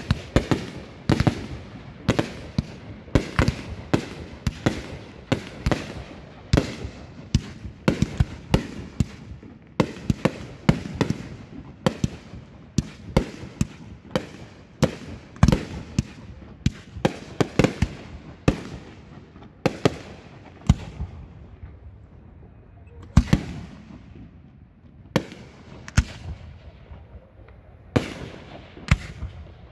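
A professional fireworks display going off at close range: a rapid run of sharp bangs from shells launching and bursting, about two a second, thinning to a few separate bangs in the last third.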